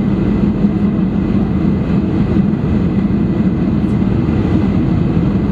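Steady cabin noise inside a Boeing 747-400 in flight: the airflow and its four turbofan engines make a constant low drone.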